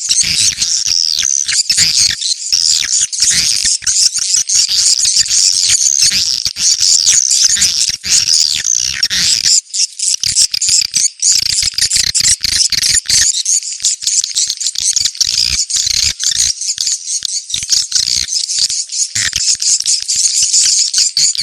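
Edible-nest swiftlets twittering in a dense, continuous chorus of high, rapid chirps and clicks, thinning briefly about ten seconds in. It is a 'ceklok' (location-check) swiftlet lure call, played to draw swiftlets in and gather them at a site.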